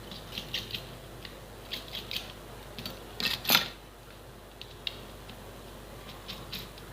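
Small screwdriver clicking and tapping on a phone's frame as its screws are undone, in scattered light clicks with a louder double click about three and a half seconds in.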